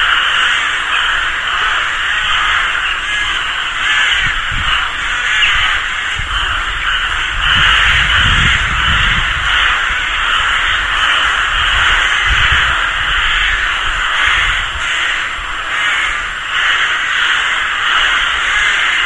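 A rook colony calling: many rooks cawing at once in a dense, continuous, overlapping chorus around their nests.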